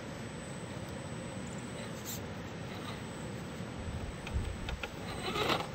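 1.9-scale RC rock crawler on a Gspeed chassis climbing over rocks: a steady low running noise, with scattered clicks and knocks of tyres and chassis on rock that are loudest in a short burst near the end.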